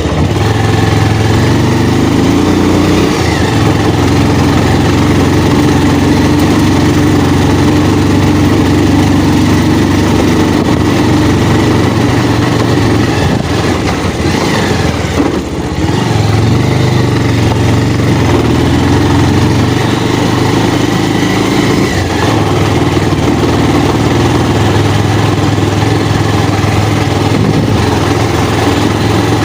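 Motorcycle engine running steadily under load on an offroad ride, easing off briefly about halfway through before picking up again.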